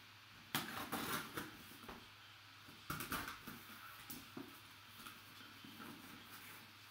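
Sealed cardboard box being opened: its packing tape cut and the cardboard flaps pulled open, with two louder scraping bursts about half a second and three seconds in, then softer cardboard rustling.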